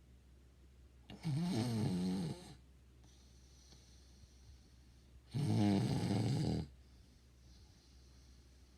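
A person snoring in their sleep: two loud snores about four seconds apart, each just over a second long, with a wavering pitch.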